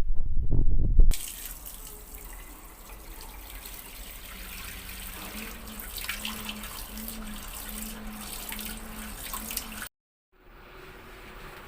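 Water running and splashing inside a washing machine, with a low hum pulsing about once a second from about halfway through. It opens with a loud low rumble lasting about a second, and the sound drops out briefly near the end before a fainter hiss returns.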